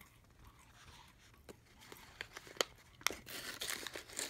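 Foil-lined plastic candy bag crinkling and crackling as it is handled. A few sharp crackles come from about a second and a half in, growing into a denser rustle near the end.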